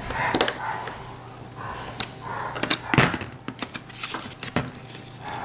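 Small clicks and taps of hands handling a plastic inline lamp switch and its screws during rewiring, with one louder knock about three seconds in.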